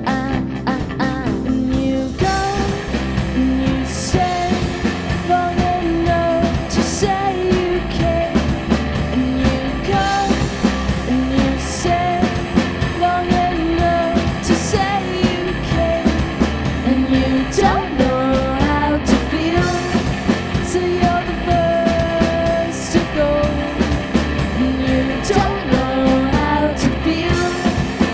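A band playing a rock song live, with singing over guitar; the lead vocal line comes in about two seconds in.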